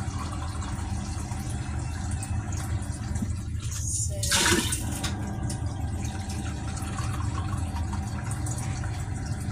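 Water poured from a bowl into a large stainless steel stockpot, the loudest splash about four seconds in, over a steady low hum.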